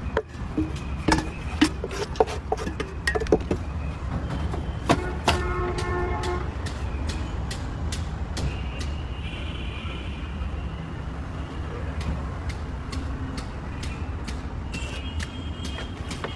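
A knife chops on a wooden cutting board, cutting fried stuffed tomato cups in quick, sharp strokes through the first half, then fainter, sparser clicks. Underneath is a steady low street rumble, with a few short pitched notes.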